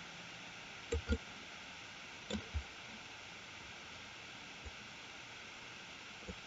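Faint computer mouse clicks, mostly in pairs, over a steady low hiss.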